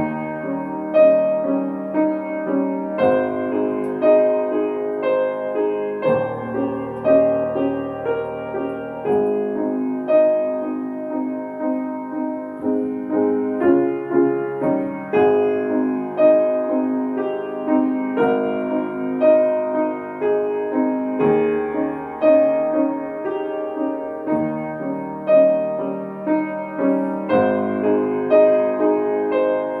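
Solo piano playing a flowing passage, with one accented note repeating about once a second over a lower accompaniment whose bass changes every few seconds.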